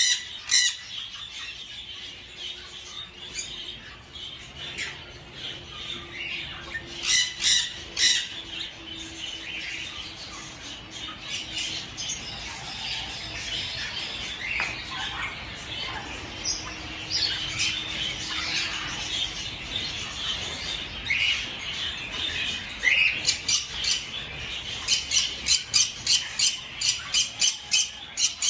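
A chorus of caged aviary birds chirping and squawking, with louder calls now and then and a quick run of repeated sharp calls near the end.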